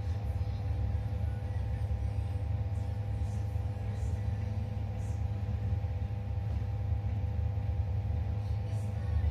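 A steady low rumble with a constant hum, and a few faint, scattered ticks from a lock-opening tool being worked inside a car door lock.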